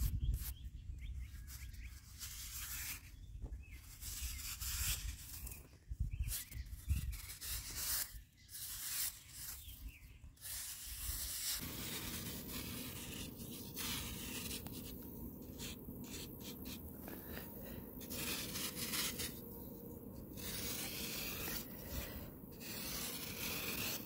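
Blades and a metal scraping tool cutting and scraping through packed sand, with gritty rasping strokes as the grains crumble away. About halfway through the sound changes abruptly to a denser, more continuous rasping.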